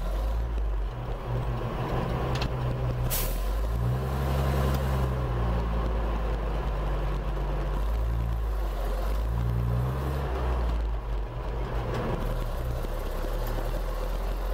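Waukesha F817G engine of an old International fire engine, heard from inside the cab while driving; its note rises and falls twice as it pulls and eases off. There is a sharp click about three seconds in.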